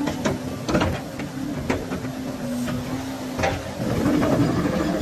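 Volvo EC240 excavator running, its hydraulics working as the boom is raised, with a steady tone over the engine for about three and a half seconds and several sharp metallic knocks; the running gets louder and denser near the end.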